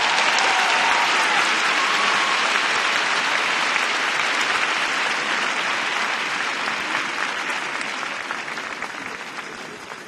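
Large arena crowd applauding, a dense even clapping that dies down over the last few seconds.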